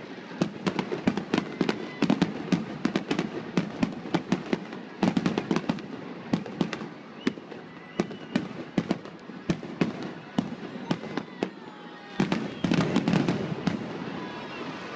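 Aerial fireworks bursting in rapid succession: many sharp bangs and crackles, with the heaviest volleys about two seconds in, around five seconds in, and again near the end.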